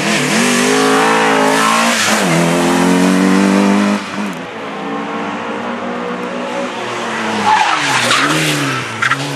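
Opel Ascona rally car engine at full throttle, coming close, its pitch dropping and climbing again at gear changes; the sound stops abruptly about four seconds in. A rally engine is then heard again, rising and falling with the throttle, with tyres skidding near the end.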